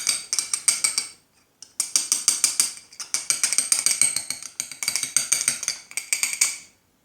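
A metal spoon stirring borax into water, clinking rapidly against the sides of the container, about ten ringing clinks a second with a short pause about a second in. This is the slime activator being mixed until the borax dissolves.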